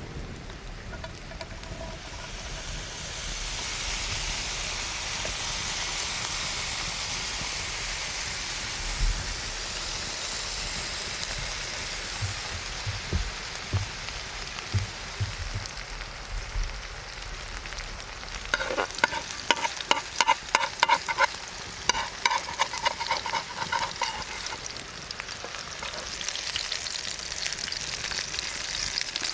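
Food frying and sizzling in a hot pan, with a steady hiss that swells in the first few seconds. About two-thirds of the way in comes a run of quick, sharp clicks and scrapes with a ringing edge.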